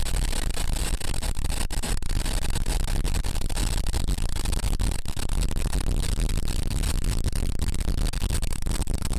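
Gasoline engine of a homemade band sawmill running steadily.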